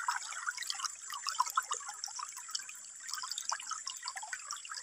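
Shallow rocky stream trickling and dripping, with small irregular splashes as a hand feels about under the water among the stones.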